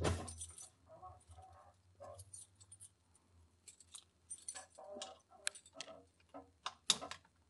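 Ignition keys rattling and clicking in the hand: a scatter of short metallic clicks and jingles.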